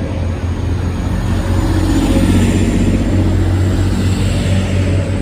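Train engine running with a steady low drone that swells about two seconds in.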